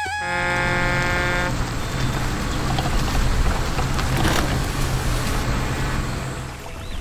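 Motor vehicle engine running with a steady low hum, growing louder toward the middle and cutting off shortly before the end.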